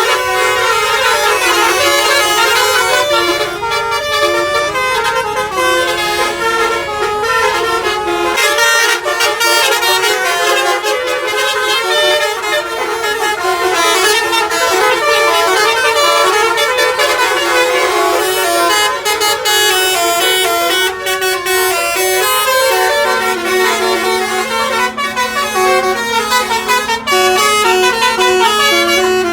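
Several Indonesian bus 'telolet' horns, multi-tone musical air horns, sounding at once and without a break, their notes stepping up and down in jingly melodies that overlap. In the last few seconds a lower steady tone joins in underneath.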